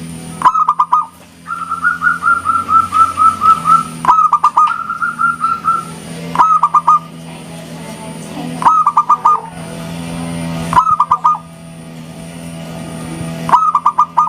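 Zebra dove (perkutut) cooing in repeated short phrases, each a sharp rising first note followed by a few quick clipped coos, about every two seconds. Between the first few phrases runs a longer string of rapid, even coos.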